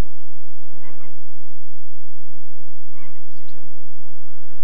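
A flock of flamingos calling with goose-like honks. Two clearer calls stand out about one and three seconds in, over steady background noise.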